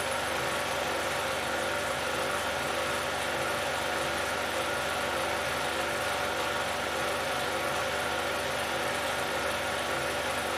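16mm film projector running: a steady mechanical whirr with hiss and a low hum.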